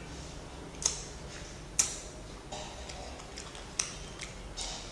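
Close-miked mouth sounds of eating fruit: a handful of short, sharp, wet lip-smacking clicks, the loudest about two seconds in, over a steady low background hum.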